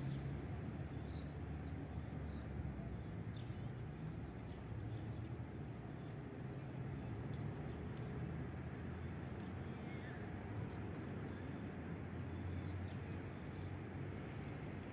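Outdoor street ambience: a steady low rumble of city noise, with a small bird chirping repeatedly, short high chirps a little under twice a second from about four seconds in.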